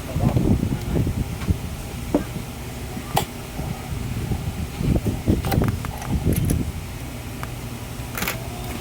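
Sewing machine parts being handled: irregular knocks and a few sharp clicks, over a steady low hum.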